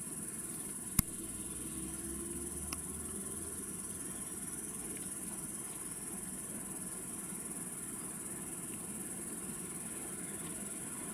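A steady, high-pitched chorus of evening insects. A single sharp click comes about a second in, and a fainter one follows a couple of seconds later.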